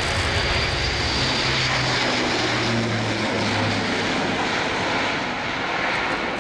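Airbus A400M's four TP400-D6 turboprop engines at high power during takeoff and climb-out: a loud, steady drone of propeller and engine noise. Under it runs a low propeller hum that drops slightly in pitch as the aircraft passes.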